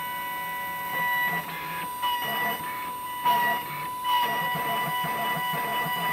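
Roland desktop milling machine milling a copper-clad PCB: a steady mechanical whine from its motors and spindle, shifting slightly in pitch and rising briefly in loudness a few times as the cutting head moves between tracks.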